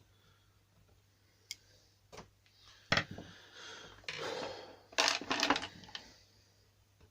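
Hand work on a disassembled strimmer's recoil starter: scattered clicks, then a sharp knock about three seconds in, some scraping, and a cluster of loud clattering knocks around five seconds in.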